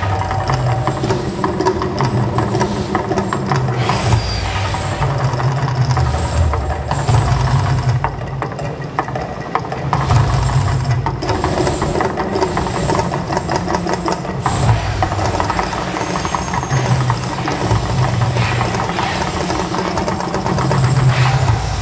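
Mirage volcano eruption show: a loud, rumbling soundtrack with a low rhythmic pulse about once a second, over the noise of the fire and fountain effects.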